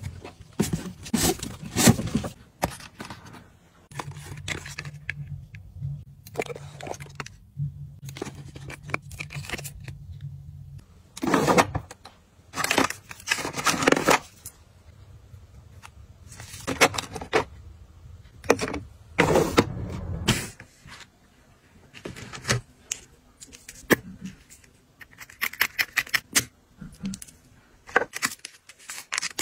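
Plastic bottles, tubes and packets being handled and set down into storage: scattered clicks and knocks of plastic on plastic and wood, with a few louder stretches of rustling and scraping partway through.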